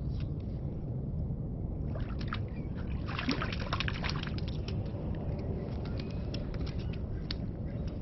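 A small fish splashing in slushy water as it is pulled up through a hole in the ice, with a cluster of splashes, drips and small clicks about two to five seconds in, over a steady low rumble.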